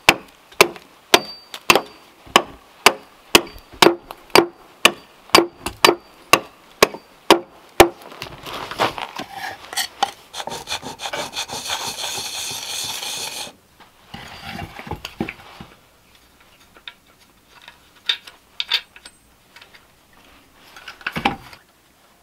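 An axe chops into a cherry wood billet, about fifteen strokes at nearly two a second. Then comes a steady rubbing of a hand tool across a cherry board for about five seconds, followed by quieter scattered scrapes and one louder hand-plane stroke near the end.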